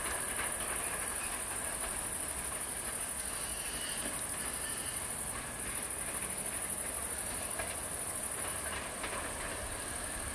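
Diesel regional train running away into the distance, its engine and wheels a faint steady rumble with light rail clicks, under a steady high hiss.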